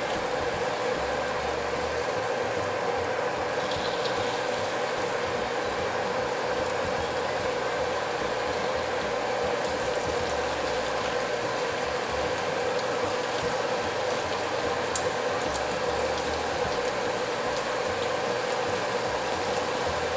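Hot oil in a wok bubbling and sizzling steadily as cornstarch-coated shiitake mushroom strips deep-fry, with scattered small crackles.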